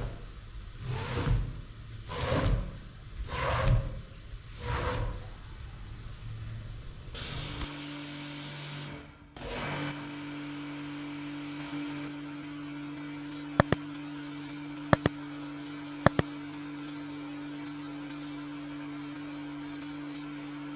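Rhythmic swishing scrub strokes on a wet rug, about one a second, over the first five seconds. After that, a steady electric hum with three sharp double clicks near the end.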